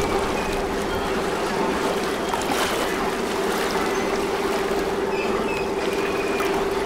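Boat engine running steadily, a constant hum over the rush of water.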